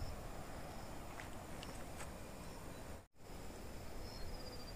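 Faint outdoor rural ambience: a steady low hiss with a few short, high insect chirps. The sound drops out completely for a moment about three seconds in.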